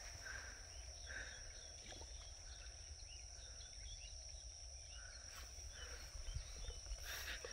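Faint outdoor ambience: a steady high-pitched insect drone, with soft animal calls every second or two and scattered short chirps.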